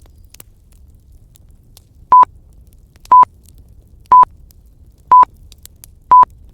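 Pomodoro timer alarm: five short, loud, single-pitched beeps about one a second, signalling the end of the 25-minute study block. Faint scattered crackle of a bonfire runs underneath.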